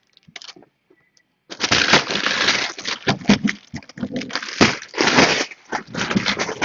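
A sealed cardboard collectibles box and its plastic wrap being torn and handled, with irregular crinkling and crunching that begins about a second and a half in.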